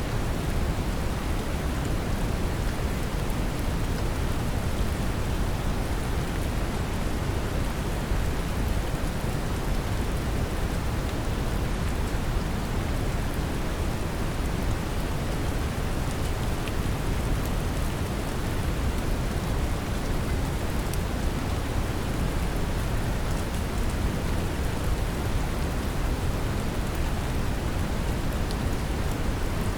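Brown noise mixed with gentle rain: a steady, deep, even hiss weighted toward the low end, with faint raindrop ticks scattered over the top.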